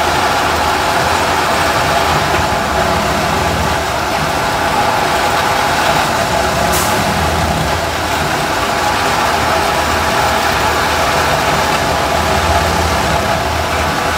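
Plasser & Theurer 08-32 U ballast tamping machine at work: its diesel engine running steadily under the vibrating tamping tines as they squeeze the ballast, the low drone swelling and easing every few seconds.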